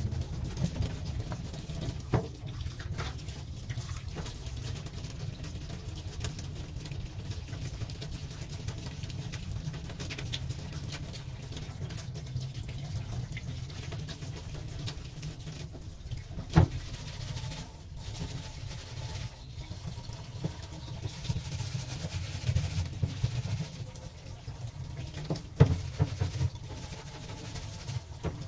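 Tap water running into a stainless-steel sink while a perforated metal sink strainer basket is scrubbed and rinsed under the stream. A few sharp clanks of metal on the steel sink stand out, the loudest two in the second half.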